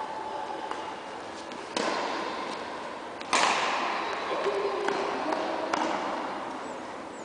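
Badminton rackets striking a shuttlecock in a rally: sharp cracks that ring on in a large hall. Two loud hits, about two and three seconds in, the second the loudest, with fainter taps before and after.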